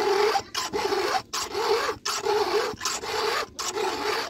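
Round chainsaw file rasping across the cutter teeth of a Stihl MS 382 saw chain in about six steady hand strokes, roughly one every three quarters of a second. Each stroke carries a faint metallic squeal, and the file is touching up a tooth that was missed.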